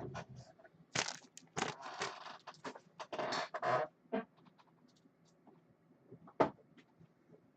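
Sports cards being handled and slid into plastic sleeves and holders: a run of scraping, rustling squeaks, then a couple of sharp clicks as the holders are set down.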